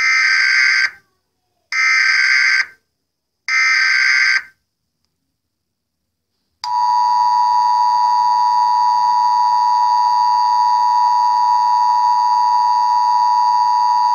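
Emergency Alert System header tones: three short bursts of warbling digital data noise, about two seconds apart, followed about seven seconds in by the EAS two-tone attention signal, a loud steady dual-pitched tone that holds.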